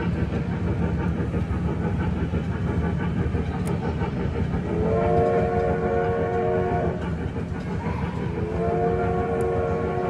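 Wattman electric mall train's whistle sounding two blasts of about two seconds each, a chord of several tones, over the steady low rumble of the train running.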